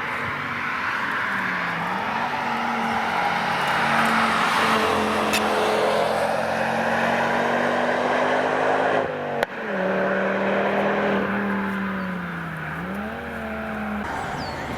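Car engine running on a wet race track, its pitch dipping and climbing back twice, over a steady hiss of tyres on wet tarmac. A sharp click about nine seconds in, where the sound briefly drops.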